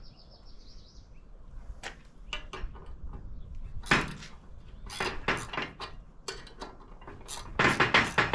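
Metal tools and parts clinking and knocking during hands-on work on a VW transaxle. The strikes are scattered at first, then a quick run of louder sharp clanks comes in the last second or so.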